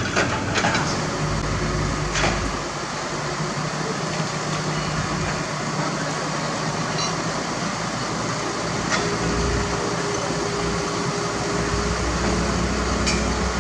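Diesel engines of heavy construction equipment running steadily, with a few sharp knocks near the start and a steady whine joining about nine seconds in.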